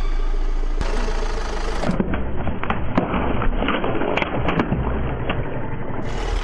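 Car engine running as the tyre rolls slowly over things on paving. From about two seconds in come a series of sharp pops with water splashing as water balloons burst under the tyre.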